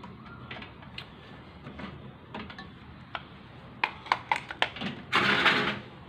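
Handling noise from the multimeter probes and the opened microwave's metal cabinet. Scattered light clicks and taps, a quick run of sharper clicks about four seconds in, then a loud scrape lasting about half a second near the end.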